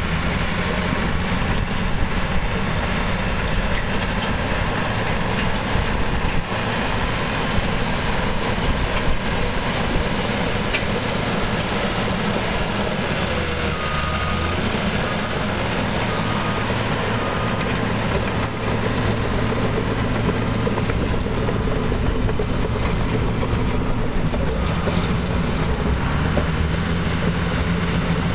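A 2004 Caterpillar D5G crawler dozer's diesel engine running steadily as the dozer drives and manoeuvres on its tracks, its note shifting a few times.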